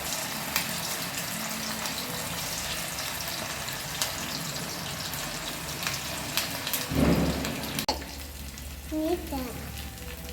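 Marinated chicken pieces deep-frying in hot oil, a steady sizzle with many sharp crackles. About seven seconds in there is a louder burst, and after it the sizzle continues more quietly over a low hum.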